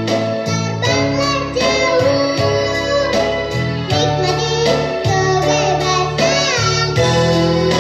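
A child singing a children's song with instrumental backing, the voice gliding between held notes over a steady accompaniment.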